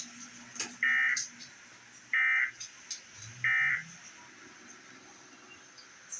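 Emergency Alert System end-of-message data tones played through a TV speaker: three short buzzy bursts a little over a second apart, the digital signal that marks the end of the alert.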